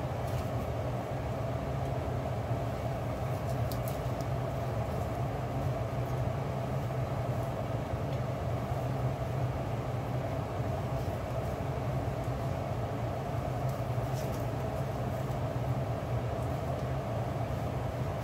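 A steady low droning hum that holds unchanged throughout, with faint light clicks about four seconds in and again about fourteen seconds in.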